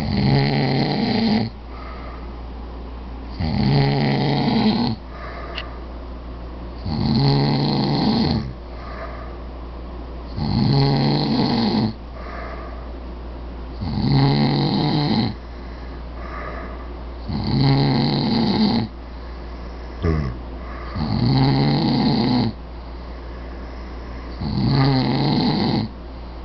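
Two men snoring heavily, which the uploader puts down to sleep apnea: a loud snore about every three and a half seconds, each lasting over a second, with fainter snores between some of them.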